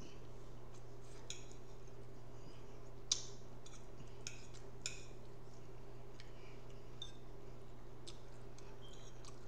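A metal fork clicking and scraping against a plate as it cuts into a slice of casserole: a few scattered light clicks over a steady low hum.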